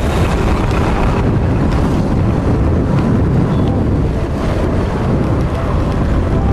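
Heavy wind buffeting the microphone of a camera on a moving motorcycle, a steady low rumble.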